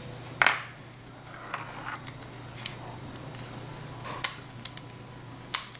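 Scattered sharp clicks and taps of a screwdriver working a small screw in a plastic inline lamp cord switch as it is handled, about eight in all, the loudest about half a second in, over a low steady hum.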